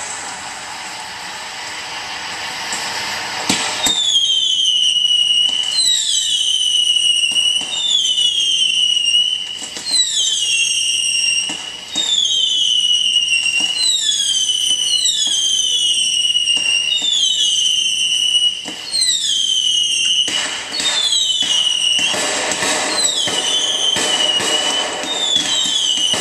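Whistling fireworks going off in quick succession: after a few seconds of hiss, a long string of shrill whistles, about one a second, each starting with a pop and sliding down in pitch.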